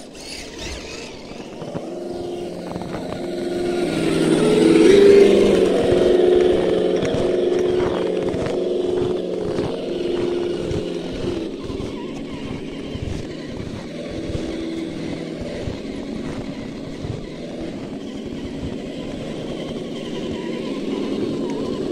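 Electric motors and gear trains of 1/8-scale radio-controlled UAZ off-road trucks whining as they drive through deep snow. The sound is loudest about five seconds in.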